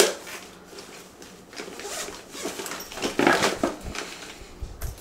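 A bag's zipper being pulled, with rustling and light knocks of small items being handled while a bag is packed. The longest scraping stretch comes a little past the middle, and there is a dull thump near the end.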